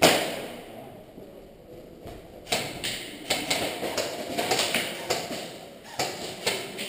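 A sharp knock right at the start, then, after a couple of seconds, a run of irregular taps and knocks: an airsoft player's footsteps and gear moving on a concrete floor.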